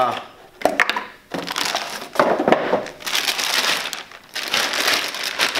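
Clear plastic bag crinkling and rustling in several bursts as a laptop power adapter is pulled out of it.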